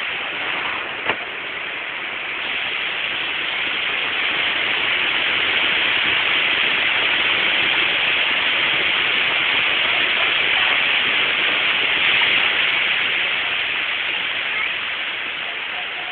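High wind in a storm: a steady rushing hiss that builds to its loudest about twelve seconds in and eases toward the end. A sharp click about a second in.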